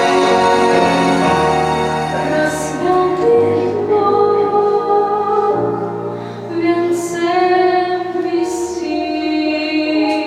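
A woman singing a song over instrumental accompaniment, with held chords and a bass line that steps between notes.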